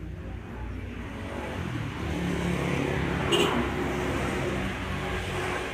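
A motor vehicle's engine running and passing close by, growing louder about a second and a half in and easing off near the end. A short sharp sound comes near the middle.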